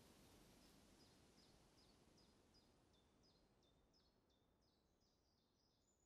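Near silence: a faint background hiss slowly fading out, with faint high chirps repeating about three times a second from shortly after the start.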